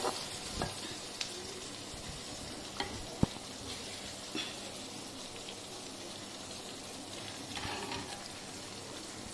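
A ladle or spoon scraping and clicking lightly against the pan as thick curry gravy is served into a bowl. Under it is a steady, faint sizzle from the hot pan just taken off the flame.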